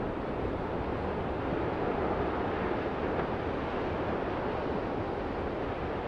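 Ocean surf: a steady wash of breaking waves rolling onto a beach.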